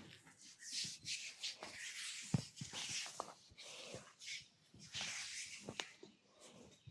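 Close-up rubbing against skin in repeated strokes, about one a second, with a few sharp clicks; the loudest click comes a little over two seconds in.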